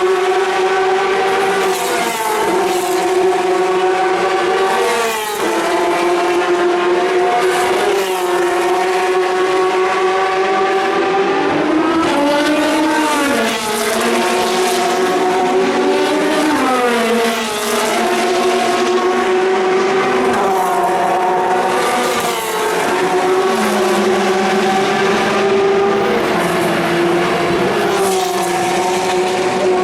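Several endurance racing cars' engines running hard as cars go by in close succession, overlapping one another. Their pitch drops and climbs sharply several times with gear changes and passes.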